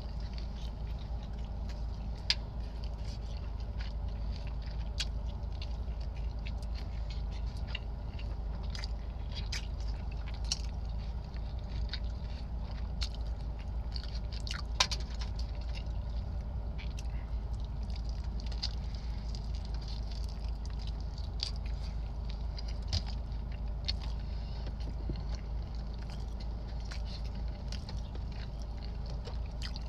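Close-up chewing and biting of a Chipotle burrito: wet mouth clicks and smacks, several a second, over a steady low hum.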